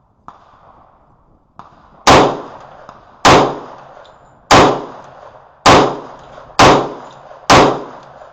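Magnum Research 1911 pistol in 10mm firing Blazer range ammunition: six sharp shots about a second apart, starting about two seconds in, each with a short ringing echo, after two faint clicks.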